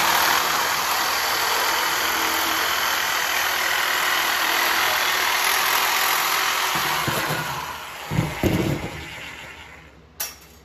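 Handheld electric metal shear running and cutting through sheet steel: a loud, steady motor buzz with cutting noise for about seven seconds, then fading out. A few knocks and rattles follow as the cut sheet steel is handled.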